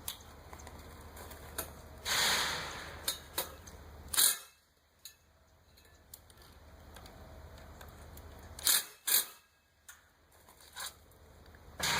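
Scattered clicks and knocks as a wrought iron gate and its latch pole are handled and lined up. There is a short scrape about two seconds in and two sharp knocks close together about two-thirds of the way through.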